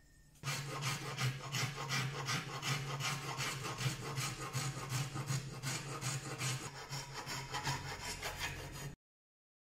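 A hand file rasping back and forth across a knife's wooden handle scales in quick repeated strokes. It starts about half a second in and cuts off abruptly near the end.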